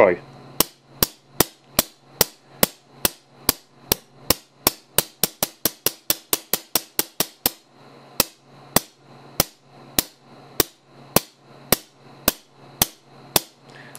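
24 V solenoid valve on a test air cannon, pulsed by a 555-timer and MOSFET control with each press of the push button, firing short blasts of 125 psi shop air. The result is a string of sharp pops, about two or three a second, quickening to about five a second, then after a brief pause slowing to under two a second.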